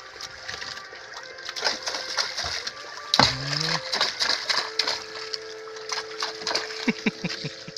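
Irregular clicks and knocks of fishing rods and reels being handled against a wooden outrigger boat, with one sharp knock about three seconds in. A faint steady hum runs through the second half.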